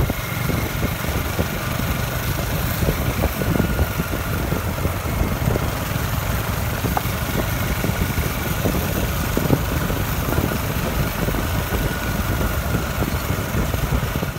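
Steady running noise of a vehicle on the move: engine sound mixed with road and wind noise, holding an even pace.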